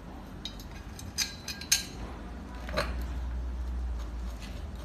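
Long steel screws clinking as they are picked up and handled: about five light, sharp metallic clicks in the first three seconds.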